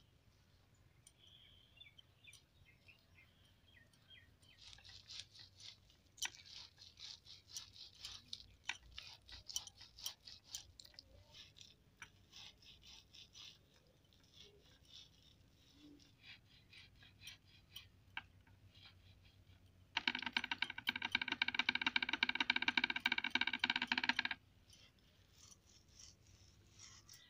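Ripe palmyra palm fruit rubbed hard against a rope-woven string cot to press out its pulp: a long run of irregular crackling and rubbing. Near the end, a loud steady buzzing tone with a clear pitch sounds for about four seconds and then cuts off.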